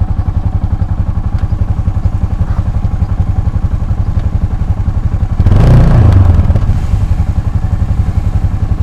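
Motorcycle engine running at low speed with a steady, fast low pulse. About five and a half seconds in, it swells into a louder surge for about a second, then settles back.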